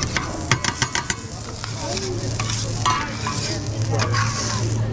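Two metal spatulas clacking and scraping on a stainless flat-top griddle as fried rice is chopped and turned, over steady sizzling. A quick run of clacks comes about half a second to a second in.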